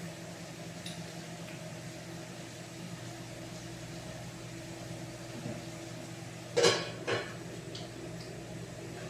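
A steady low mechanical hum, with two sharp clinks of kitchenware close together about two-thirds of the way in.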